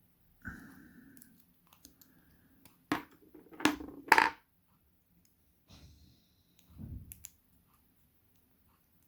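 Small metal clicks, taps and knocks from handling a lock cylinder and its tools while taking the lock apart. Three sharp knocks come around three to four seconds in, the last the loudest, with brief metallic ringing near the start and again past the middle.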